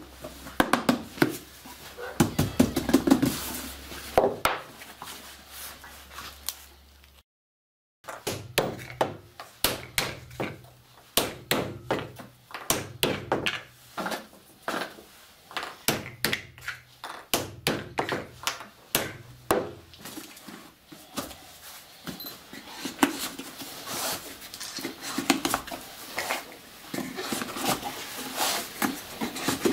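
Repeated dull knocks of a wooden rammer tamping the contents down inside a cardboard firework casing, mixed with the clatter of small pieces being handled and dropped into the tube. The sound cuts out briefly a little past seven seconds, and the knocking comes about twice a second for the next dozen seconds.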